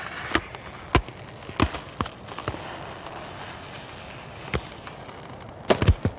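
Ice cracking: a series of sharp cracks and snaps, several in the first two seconds or so, sparser in the middle, then a tight cluster of louder cracks near the end, over a faint steady background hiss.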